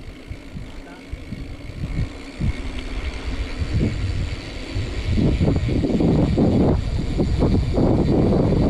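Wind buffeting the microphone while riding, a gusty low rumble that grows much louder about five seconds in.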